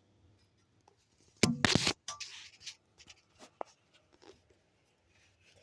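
Handling noise: a short cluster of sharp clicks and a knock about one and a half seconds in, then scattered faint clicks and rustles.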